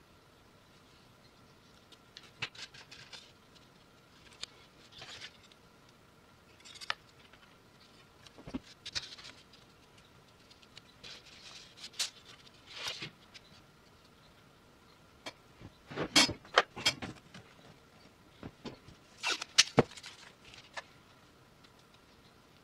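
A die-cast metal toy tractor chassis handled on a cardboard-covered workbench: scattered light clicks, taps and rustles, loudest in a cluster about three-quarters of the way through.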